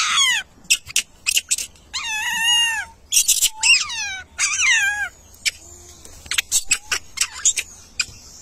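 Monkey giving a series of shrill, high squealing calls, each sliding sharply down in pitch, with short sharp chirps between them.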